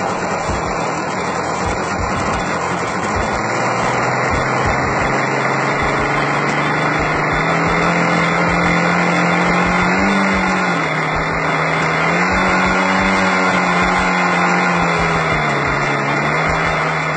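Magnum 46 two-stroke nitro glow engine of an RC model airplane running loudly and steadily. Its pitch climbs a few seconds in, then rises and falls a few times.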